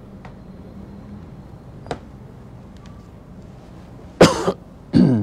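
A man clearing his throat with two short coughs, the first about four seconds in and the second just before the end, the second dropping in pitch. Earlier a single light click sounds over a low steady room hum.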